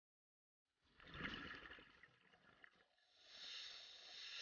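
Scuba diver breathing through a regulator underwater: a gurgling exhale of bubbles about a second in, then a hissing breath drawn through the regulator in the second half.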